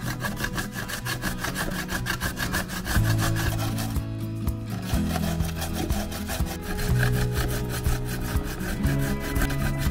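Fresh zucchini being grated on a stainless steel box grater: rapid, rhythmic scraping strokes, with a brief pause about four seconds in. Background music with low bass notes plays underneath.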